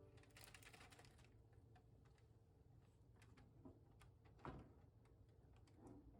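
Near silence: room tone with a few faint scattered clicks and knocks, the clearest about four and a half seconds in.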